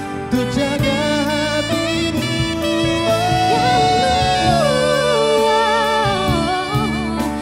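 Music: a song with long, wavering held melody notes over a steady accompaniment.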